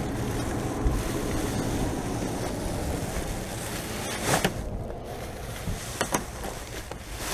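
Heavy rain shower falling steadily, with wind rumbling on the microphone. A few brief sharp noises cut through about four and six seconds in.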